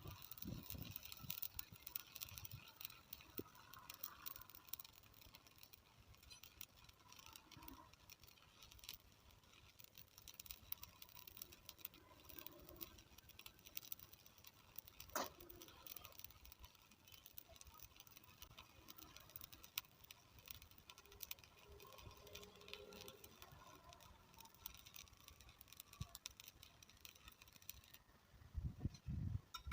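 Near silence with faint scattered clicks and light taps, and one sharper click about halfway through.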